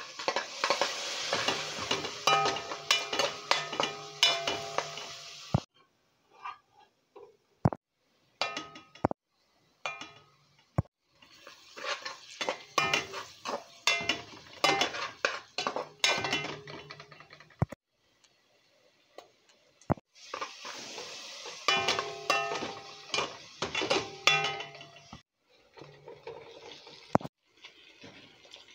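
A spatula stirring and scraping onions and spices in a frying pan, a rapid clatter against the pan in three stretches of several seconds, with a steady hum beneath. Between the stretches there are short quiet gaps with a few single knocks.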